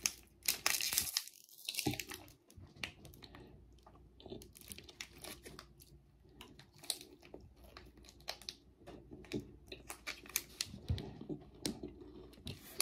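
Plastic candy-bar wrapper tearing and crinkling as it is pulled open, densest in the first couple of seconds. After that come quieter, scattered crinkles and the chewing of a milk-chocolate-coated caramel and crisp-rice bar.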